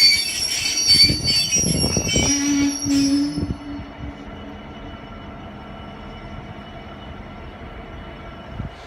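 Heavy freight train's wheels and brakes squealing, with clanks from the wagons as it slows, cutting off about three and a half seconds in. After that only a low steady rumble remains.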